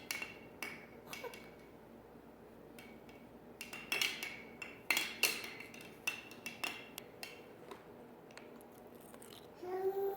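Irregular clinks and knocks of small hard objects struck together, each ringing briefly, coming in clusters. A short pitched vocal sound falls in pitch near the end.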